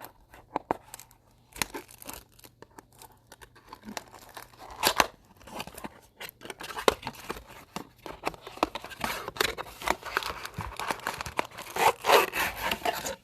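A sealed trading-card blaster box being torn open by hand: wrapping and cardboard ripping in short tears with sharp clicks, and the packs inside crinkling. A longer, louder tearing comes near the end.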